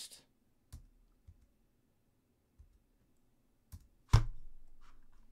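A few faint computer mouse clicks, then one loud thump about four seconds in that dies away over about a second.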